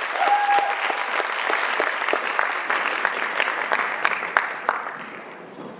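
Audience clapping, with a short cheer near the start; the applause thins out and fades toward the end.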